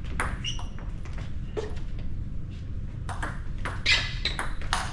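Table tennis ball clicking off the bats and table during a rally, the hits coming faster near the end, with a few short squeaks.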